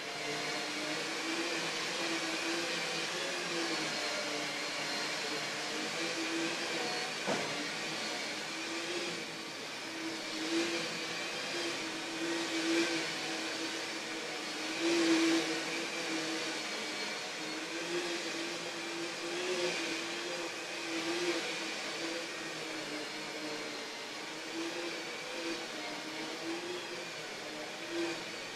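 Carpet-cleaning vacuum machine running steadily: a motor hum with a rush of air, its level swelling slightly now and then as it is worked over the carpet.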